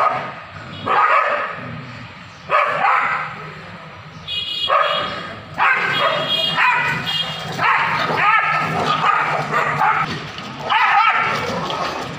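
Several street dogs barking and yelping at each other in a fight, in loud outbursts every second or two that run almost unbroken for a few seconds in the middle.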